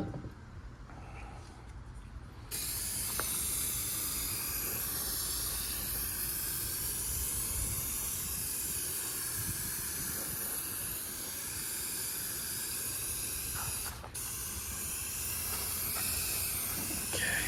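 Aerosol can of brake cleaner spraying in a long steady hiss, starting a couple of seconds in, with a brief break before it resumes.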